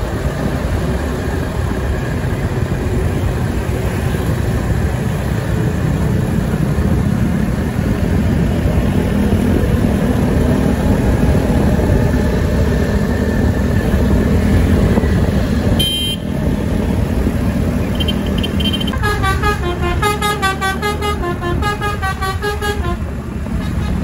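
Bus engine and street traffic running steadily. About three-quarters of the way in, a telolet 'basuri' musical bus horn plays a quick tune of short notes stepping up and down for about four seconds.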